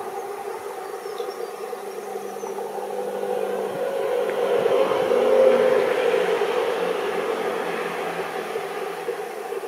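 EMD GT46ACe (WDG4D) diesel-electric locomotive approaching from a distance, its engine a steady drone that swells about five seconds in and then eases a little.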